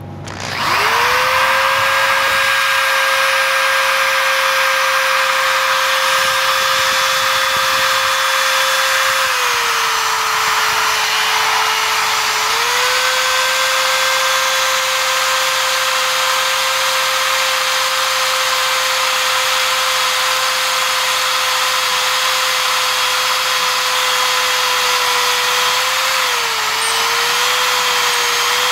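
Electric drill spinning a carbide tile-and-glass bit into 1/8-inch steel tubing: a steady motor whine that starts about half a second in. The pitch sags for about three seconds around ten seconds in, and dips briefly again near the end.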